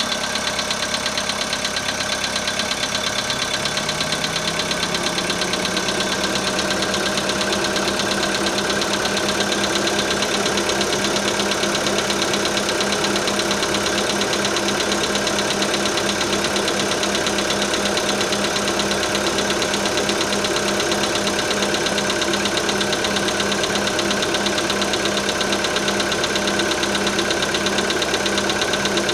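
Volkswagen Polo Sedan engine idling with a steady, evenly repeating knock from inside the engine, the fault the owner is recording.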